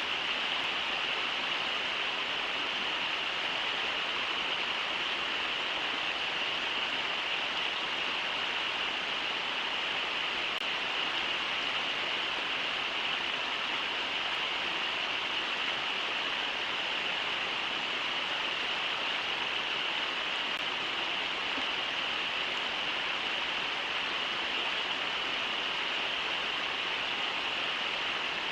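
Brooks River water rushing over shallow rapids: a steady, unbroken hiss of flowing water.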